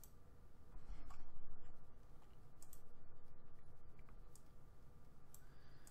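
A few faint computer mouse clicks, spread out, over a low steady background hum.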